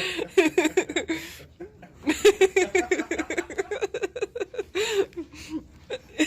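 A woman laughing in quick repeated pulses, with a short break about a second and a half in.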